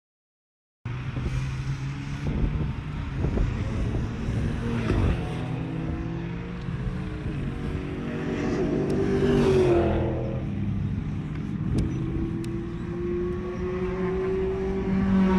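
Cars on a race circuit running at speed. Their engines climb in pitch as they accelerate and drop back at a gear change around ten seconds in, over a steady low drone. The sound starts abruptly about a second in.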